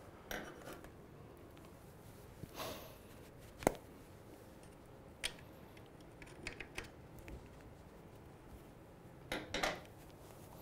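Small clutch pushrod parts (bearing race, needle bearing and piston) being handled and pushed into the rear of a BMW airhead gearbox: scattered light metal clicks and taps, the sharpest a little under four seconds in.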